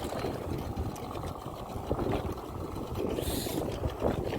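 Fishing boat's engine running at idle, a steady low rumble, with a brief hiss a little after three seconds in.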